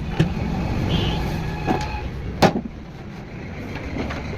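A few sharp knocks, the loudest about two and a half seconds in, over a steady low rumble, typical of tools and parts being handled during a motorcycle repair.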